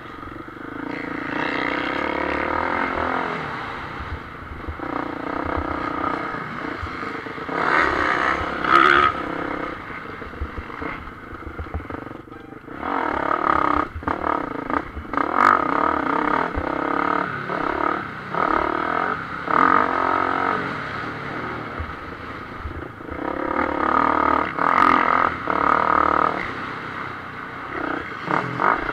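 Motocross bike engine heard from the onboard camera, revving up and falling off again and again as the bike is ridden around a dirt track. There are a few sharp knocks along the way.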